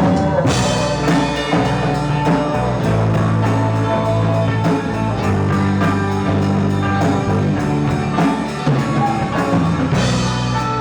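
Live rock band playing an instrumental passage: electric guitar over bass and drum kit.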